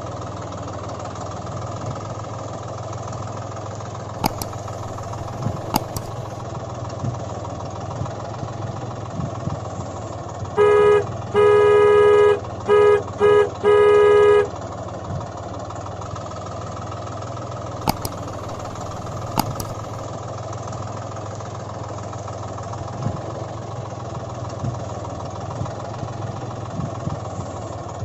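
Tractor engine sound running steadily throughout, with five horn honks in the middle (short, long, two short, long), louder than the engine.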